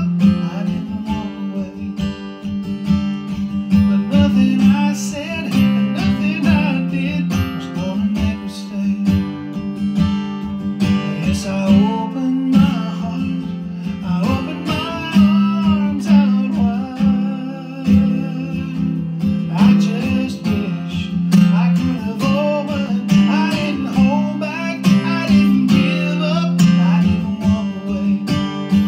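Acoustic guitar strummed steadily in rhythm, with a man's voice singing over it at times.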